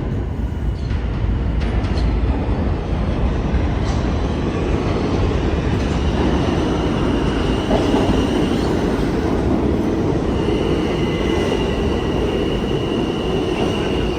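New York City subway train running through a station, with a steady rumble of wheels on rails. A thin high squeal or whine comes in about six seconds in and again from about ten seconds on.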